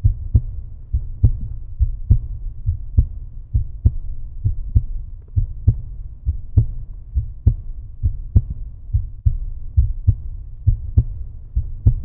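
Background music: a deep bass pulse with a steady beat of sharp hits, a little over one a second.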